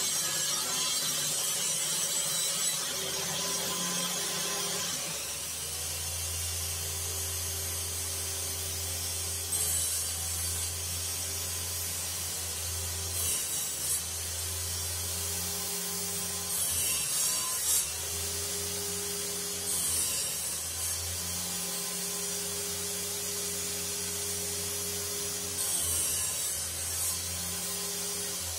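Homemade table saw running steadily, its circular blade cutting through wooden boards in about five short cuts, each a brief high-pitched rip over the motor hum.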